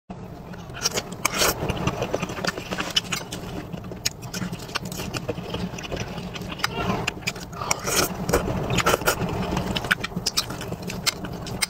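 Close-miked eating sounds: a metal spoon scraping and clinking against a plate, with chewing and many small wet mouth clicks, over a steady low rumble.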